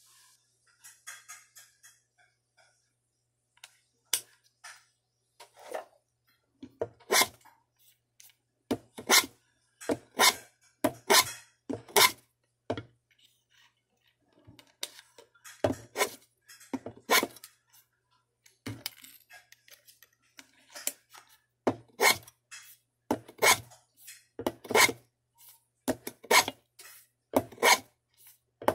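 Short, sharp clicks and knocks of hand-tool work on small wooden kumiko strips, coming irregularly about once a second. They are sparse and faint at first and steadier from about nine seconds in.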